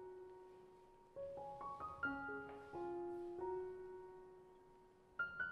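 Gentle background piano music: a slow melody of single held notes, each phrase fading away before the next begins.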